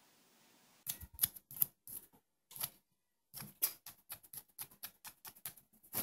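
A run of sharp, irregular clicks, several a second, starting about a second in.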